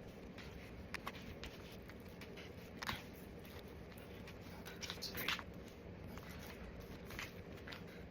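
Faint food-prep handling sounds from slicing and bagging raw chicken breasts: a few light clicks and scrapes, about one second in, near three seconds and a brief cluster around five seconds, over a low steady room hum.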